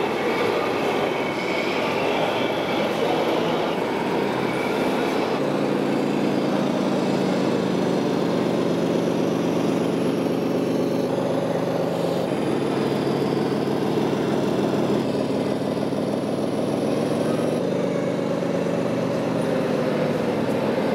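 Electronic diesel-engine sound from a radio-controlled model truck's sound module, running steadily, with the engine note stepping to a new pitch a few times.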